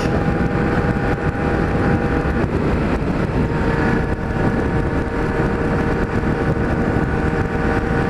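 Kawasaki Z1000 inline-four running through a 4-into-1 aftermarket exhaust fitted with a baffle, with wind rushing past, heard while riding at road speed. The engine note steps up in pitch about two and a half seconds in.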